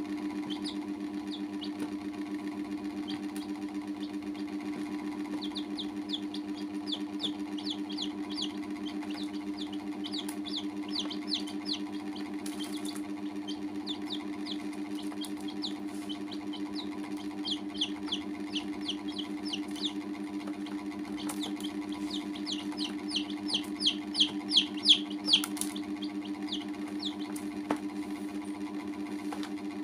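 Young chicks peeping in quick runs of short, high cheeps, the loudest run coming late, over a steady low mechanical hum.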